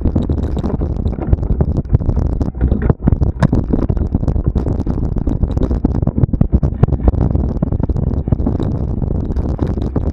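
Steady low rumble of wind and motion on a moving camera's microphone, with many irregular knocks and rattles, as the camera travels at speed along a cross-country trail.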